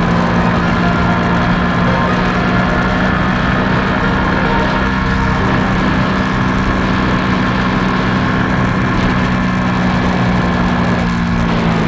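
Suzuki GSX-R150's single-cylinder engine running at a steady cruising speed, holding one even tone, mixed with wind rushing over the bike-mounted microphone.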